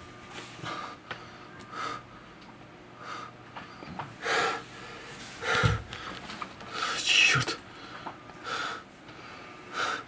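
A man breathing hard in short, ragged breaths and gasps, about one a second, growing louder about four seconds in. He mutters a curse about seven seconds in.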